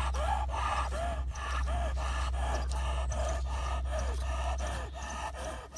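Dog panting rapidly, about three breaths a second, with short whines between breaths: the dog is worked up at the sight of a fisher.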